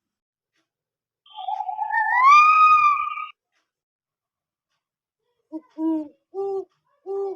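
An animal call: one drawn-out cry beginning about a second in, rising in pitch and then holding steady for about two seconds. Near the end comes a series of short, low calls, about two a second.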